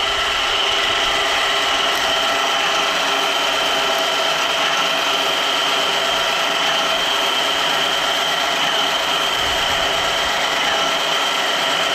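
Woodland Mills HM130 MAX bandsaw mill running steadily under power, its band blade cutting through an oak log, with a steady high whine over the engine and saw noise.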